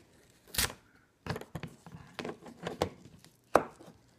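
Handling noises while strips of 3M double-sided mounting tape go onto a DBS recharger base: about half a dozen short taps and scrapes, scattered irregularly, with one sharper tap near the end.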